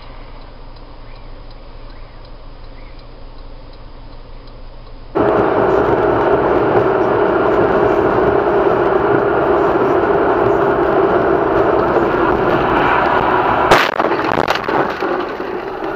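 Road and engine noise inside a moving car, a quiet hiss at first, then a loud steady drone from about five seconds in. Near the end comes a single sharp bang of a collision.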